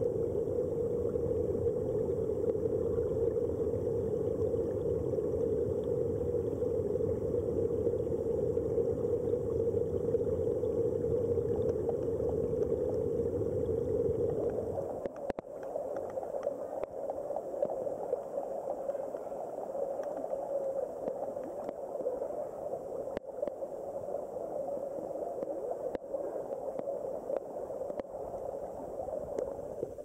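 Flowing stream water heard from under the surface, a steady low rushing. About halfway through it changes abruptly to a quieter, slightly higher rush with scattered faint ticks.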